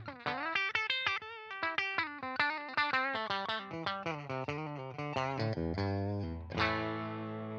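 JCraft LSX-1 electric guitar with humbucker pickups playing a quick single-note lead run with bent and wavering notes, then a chord struck about six and a half seconds in and left ringing.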